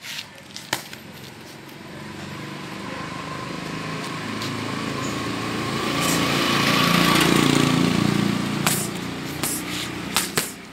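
A motor vehicle's engine passing close by, growing louder over several seconds to its loudest about seven seconds in, then falling away. Boxing gloves smack against focus mitts once near the start and several times near the end.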